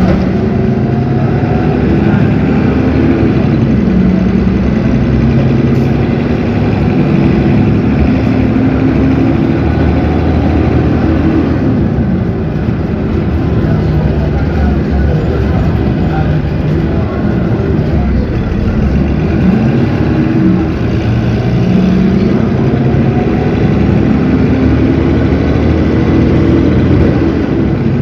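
Cummins ISB 6.7 six-cylinder diesel engine of an Agrale MT17 city bus running under way, its pitch climbing and dropping back several times as the bus speeds up and slows.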